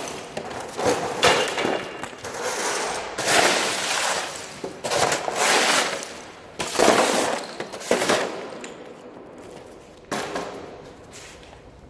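Loud, irregular bursts of metal clanging and scraping on an old steel safe as it is being broken into, about seven rough strokes that die down near the end.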